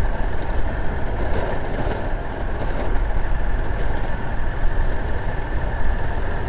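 Motorcycle riding at a steady speed on a dirt road: a steady engine drone mixed with wind and tyre noise.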